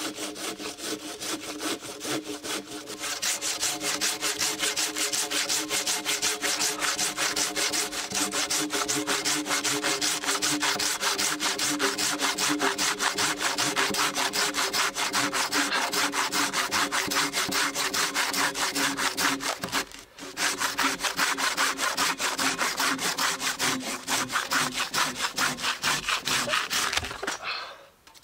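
Hand saw cutting through a log with fast, steady back-and-forth strokes. There is a brief break about twenty seconds in, and the strokes stop about a second before the end as the cut goes through.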